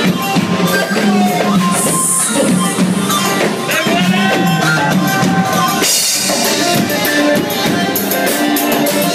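Live Arabic dance music: an electronic Korg keyboard playing a melody with pitch bends over a steady drum beat.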